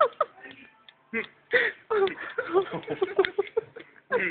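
Young men laughing, with bits of indistinct talk between the laughs.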